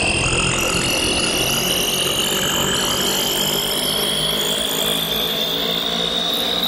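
Synthesized futuristic sound effect: a dense, steady noise with one high tone that rises slowly and evenly in pitch throughout.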